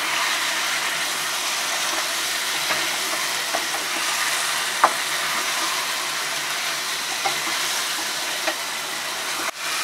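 Chicken tikka pieces and thick cashew-paste masala sizzling steadily in a nonstick pan as a spatula stirs and mixes them, with a few light taps of the spatula against the pan.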